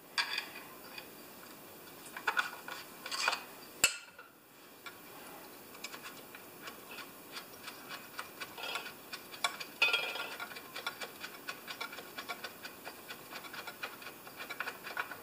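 Small metal engine parts and hand tools being handled on a bench: light metallic scrapes and rattles, one sharp click about four seconds in, then a long run of rapid, irregular light ticks.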